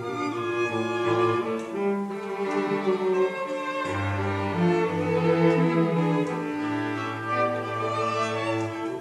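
Background music of bowed strings, cello and violin, playing a melody over long held low notes.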